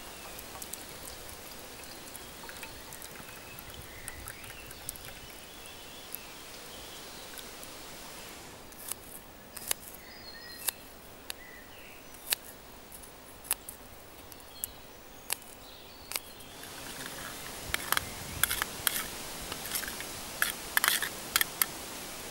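A knife slicing garlic cloves on a small metal plate, each cut ending in a sharp click against the metal, about one a second through the middle. Near the end come louder, quicker metal clicks and scrapes as a utensil works against a metal mess tin.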